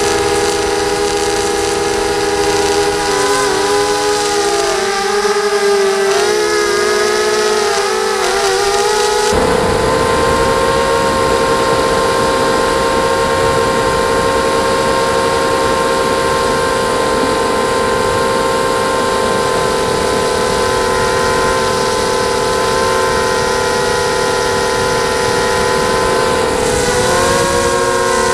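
ZMR250 mini quadcopter's Sunnysky 2204 brushless motors and propellers whining, heard through the onboard camera. The pitch wavers up and down with throttle changes, then holds steady from about nine seconds in, when a rushing noise suddenly gets louder. It wavers again near the end.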